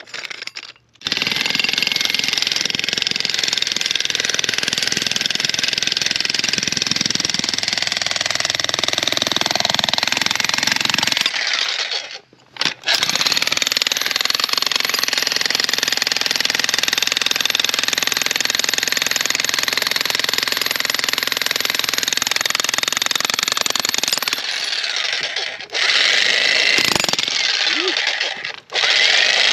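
Vevor 2200W electric demolition jackhammer hammering into a large rock. It runs in long, loud stretches: it stops for about a second a third of the way in, runs steadily again, and breaks off in a few short stops near the end.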